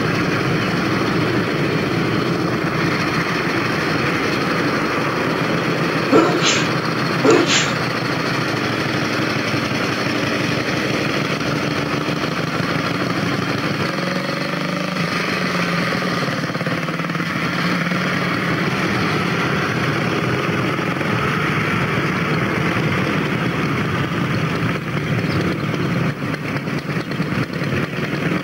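Vintage motorcycle engines running as the bikes ride past one after another. There are two short sharp sounds about six and seven seconds in.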